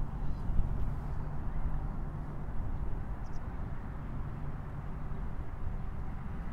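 Outdoor city ambience: a steady low rumble of distant traffic with a faint hum, and one brief high chirp about three seconds in.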